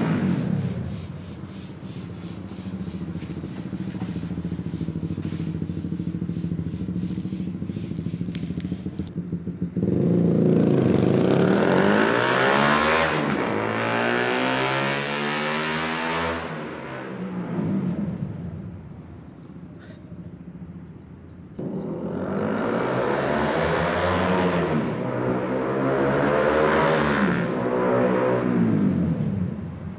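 Sport motorcycle fitted with a LeoVince aftermarket exhaust, its engine revving and changing pitch as it rides up and down. It gets loud about a third of the way in with the pitch rising and falling, drops away, then comes back loud in the last third.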